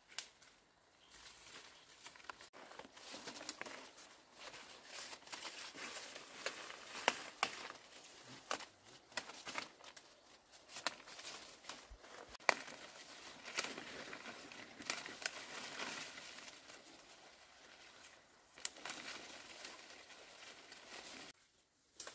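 Leaves and stems rustling and crinkling as large leaves are picked by hand in dense bamboo undergrowth, with frequent sharp snaps of stalks breaking.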